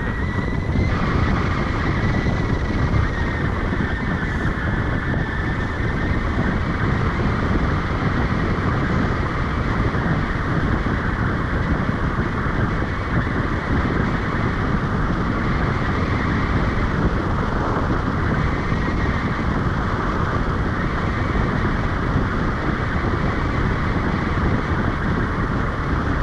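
Wind rushing steadily over the camera microphone during tandem paraglider flight: a loud, even rush with no let-up.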